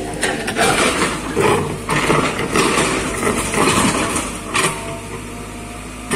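Compact excavator's diesel engine running under load while its bucket scrapes and breaks up the road surface, with repeated grating of rubble and soil and a sharp knock about four and a half seconds in.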